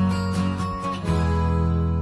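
Music without vocals: strummed acoustic guitar chords, moving to a new chord about halfway through.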